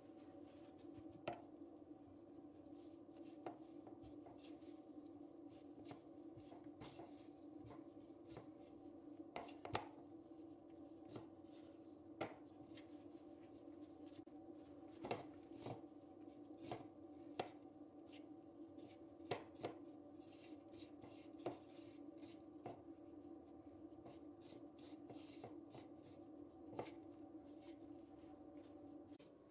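Fingers rubbing butter dough into flour in a wooden bowl, crumbling it, with scattered light clicks and taps against the bowl over a steady low hum.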